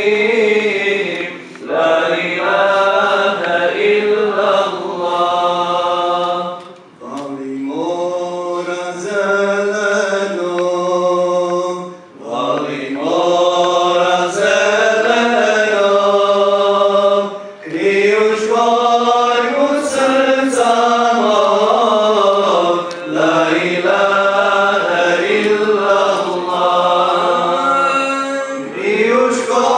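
Voices singing a devotional chant in long melodic phrases, with brief breaks between the phrases.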